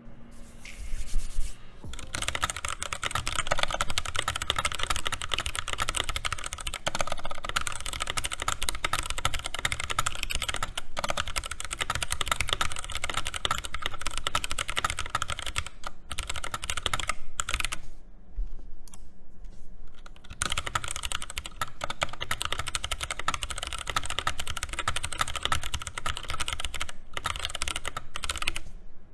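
Fast, continuous typing on a Keychron K6 wireless mechanical keyboard with Gateron Brown switches, stock and unlubed, keys clacking in rapid strings. The typing is lighter for the first two seconds, and there are brief pauses about two-thirds of the way through.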